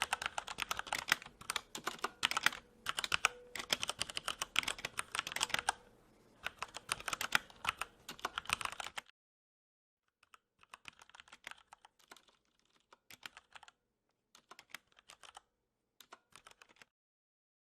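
Typing on a mechanical keyboard: fast runs of key clicks, then, after a short break about nine seconds in, quieter and sparser typing.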